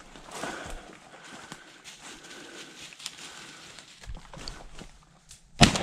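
Footsteps crunching and rustling through dry leaf litter and brush, then a single loud shotgun shot near the end, fired at a flushed woodcock.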